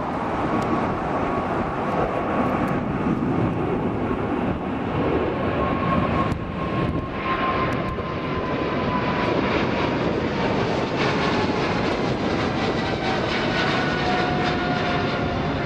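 Boeing 777-300ER's twin GE90 turbofans on climb-out passing overhead: a steady jet roar with a whining fan tone that slowly falls in pitch as the aircraft goes by.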